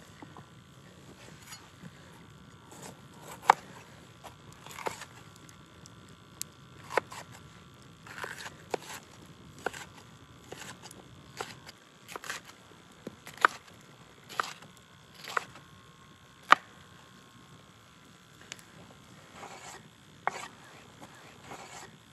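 Irregular sharp clicks and knocks, about one every second, a few of them much louder than the rest, over a faint steady background.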